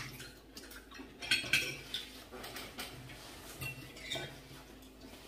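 Spoons and forks clinking against ceramic plates and bowls while people eat, in scattered short clinks, with a few sharper ones about a second and a half in.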